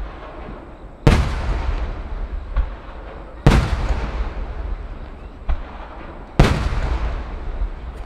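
Large aerial firework shells (1-shaku, about 30 cm chrysanthemum shells fired in succession) bursting: three loud booms about every two and a half to three seconds, each followed by a long rolling echo, with fainter thuds between them.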